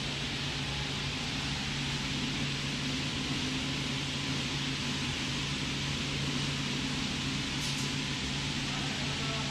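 Steady fan-like hiss over a low machine hum, unchanging throughout, with a faint brief tick near the end.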